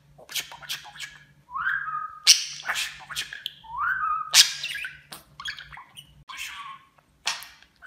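Male budgerigar chattering and warbling: quick scratchy notes broken by two short rising whistles.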